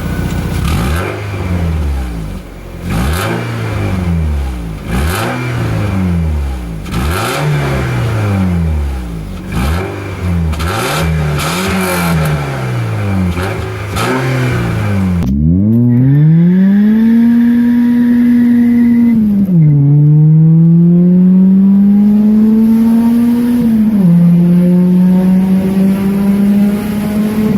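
Opel C20XE 2.0-litre 16-valve four-cylinder engine revved in about a dozen quick blips. Then it pulls hard under acceleration, its pitch climbing, with two upshifts where the pitch drops.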